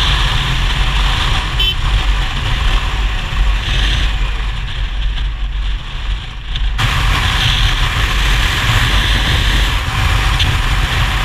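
Steady wind rush and low rumble from riding a Kawasaki ER-6n motorcycle at highway speed, with road and engine noise mixed in. The sound shifts abruptly about seven seconds in.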